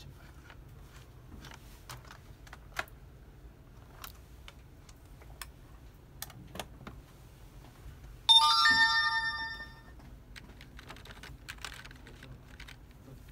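Scattered clicks of computer keyboard keys and a mouse. About eight seconds in comes a loud electronic chime of several tones struck together, fading out over about a second.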